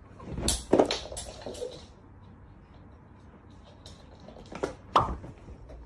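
Knocks and clatters of a wooden door being handled and opened: a cluster of them in the first two seconds, then two sharper knocks near the end.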